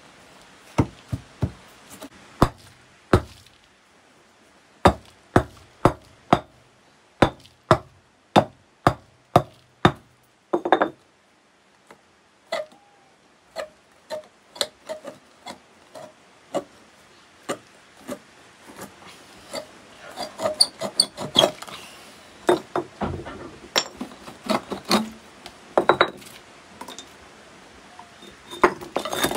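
Hand tool work: sharp knocks, one or two a second, for the first ten seconds or so, then softer scattered knocks that turn into busier, irregular clattering after about twenty seconds.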